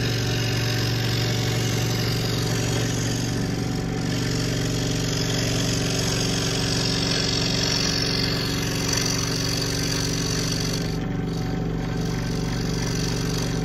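Scroll saw running at speed with a steady hum and fast, even chatter of the reciprocating blade as it cuts a thin wooden board along a script-letter pattern.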